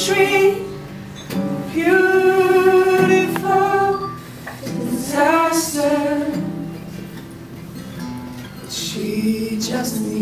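A male vocalist sings long held notes with vibrato over guitar accompaniment in a live performance. Between the phrases the instruments carry on alone.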